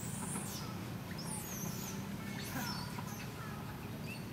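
Short high-pitched squeaky animal calls, gliding up and down in pitch, in three groups: near the start, about a second and a half in, and about two and a half seconds in. A steady low hum runs underneath.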